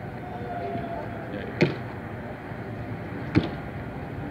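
Basketball caught on chest passes, smacking into a player's hands twice, about two seconds apart, over steady background noise.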